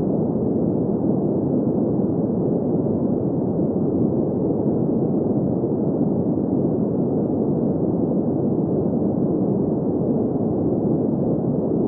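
Steady synthetic green noise used as a sleep sound: an even, muffled rushing hiss with its weight in the low-middle range and no highs, unchanging throughout.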